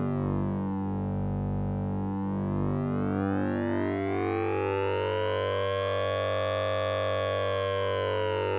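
Synthesized 'Sync'n'Ring' tone from the Orange Vocoder plugin: a steady low drone under a buzzy stack of overtones that sweep slowly down, rise to a peak past the middle, and begin to fall again.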